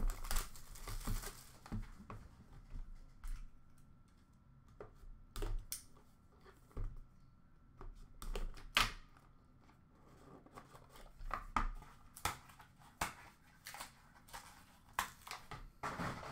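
A sealed trading-card hobby box being slit open with a utility knife and unpacked: short scraping cuts, crinkling wrap and light cardboard clicks and knocks, coming in irregular bursts with quiet gaps between.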